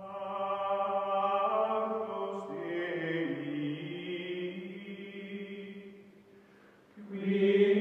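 Outro music of held choir-like chords that change about three seconds in and fade out by about six seconds, with a new chord entering near the end.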